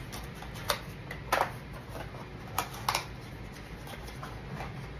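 Small kraft-cardboard soap box being handled and opened by hand: scattered light taps and rustles of the cardboard, with four sharper clicks, one a little before and one after a second in, and two close together between two and three seconds in.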